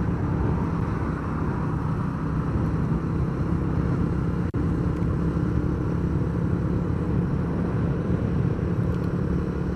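Steady drone of a vehicle's engine with road and wind noise while travelling along a highway. The sound drops out for an instant about four and a half seconds in.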